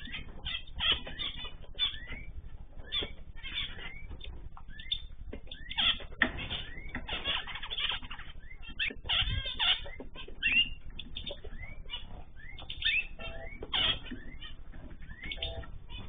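A group of small cage birds chirping and calling, with many short overlapping calls and quick sliding notes coming irregularly.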